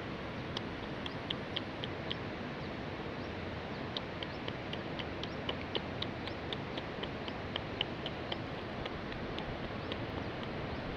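Runs of short, high chirps, about three to four a second, from a small animal, over a steady outdoor background hiss.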